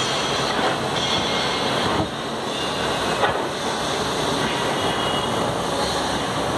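Steady, loud mechanical rumble and hiss of running machinery, with a faint on-and-off high whine and a single sharp click about three seconds in.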